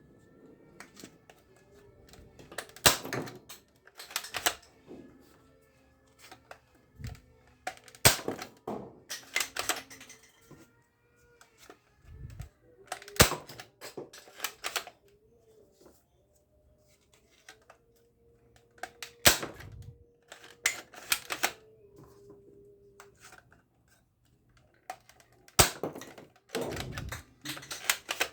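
Toy gun fired five times, about every five seconds, each sharp shot followed by a short clatter of small balls knocked over and bouncing.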